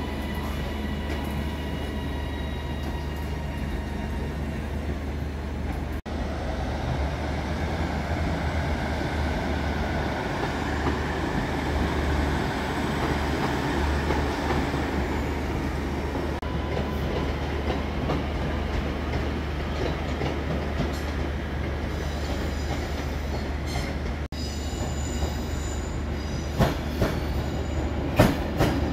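Passenger trains running through a large station: a steady low hum and rumble of the trains and their wheels on the rails, with a few sharp clicks near the end as wheels pass over rail joints.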